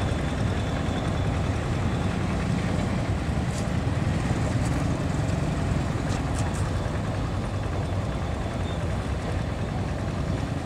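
Steady low rumble of a vehicle engine running, with a few faint ticks in the middle.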